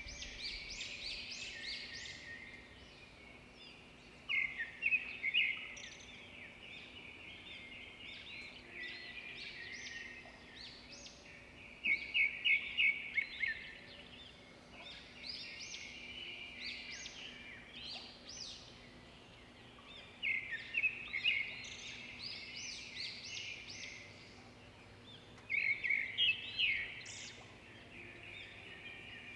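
African wild dogs twittering: rapid, high, bird-like chirps in chattering bursts that swell and fade every few seconds, the excited calling of a pack around a kill.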